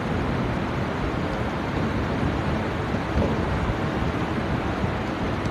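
Steady low rumbling background noise with no voice in it.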